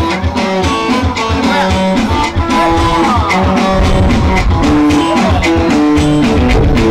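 Borana-style dance music led by a plucked guitar playing a quick melodic line over a steady bass beat.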